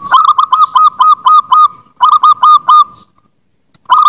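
Zebra dove (perkutut) singing its staccato cooing song: a quick run of about eight short clipped coos at one pitch, a shorter run of four or five about two seconds in, and another run starting near the end after a brief pause.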